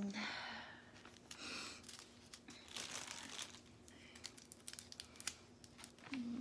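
Small plastic zip bags of diamond-painting drills crinkling and rustling in short bursts as they are handled, with scattered light clicks.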